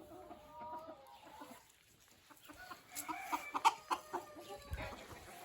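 Roosters making low, drawn-out grumbling clucks, their 'complaining' calls, in two spells: one about half a second in and another around three seconds in.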